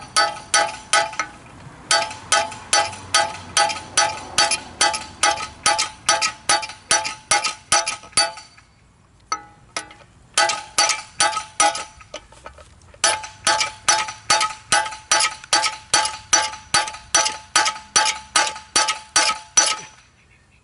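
Hammer blows ringing on a metal pipe fitting used as a driver to knock the old front wheel bearing out of a Honda Civic's steering knuckle. About three strikes a second, in several runs with brief pauses between. The bearing is stuck, and the strikes break it apart rather than push it out.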